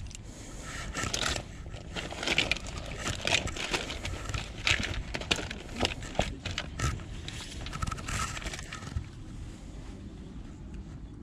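Loose plastic action figures clattering and rustling as a hand rummages through them in a fabric storage box, a run of quick clicks and scrapes that eases off near the end.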